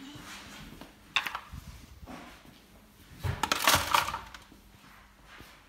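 Plastic toys and a plastic bag being dropped into a kitchen sink: one sharp knock about a second in, then a louder run of clattering and rustling around three to four seconds in.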